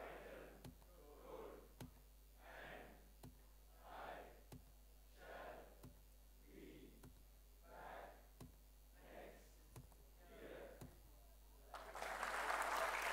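A man's quiet voice says single words at a steady pace, about one every second and a half, each followed by a sharp click of a slide being advanced. About twelve seconds in, audience applause breaks out and grows loud.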